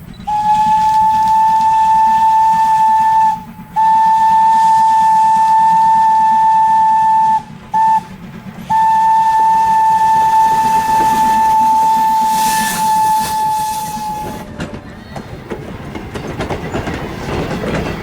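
Steam locomotive whistle sounding one steady note in the grade-crossing pattern: two long blasts, a short one, then a final long one. The train's running and wheel noise follow after the last blast.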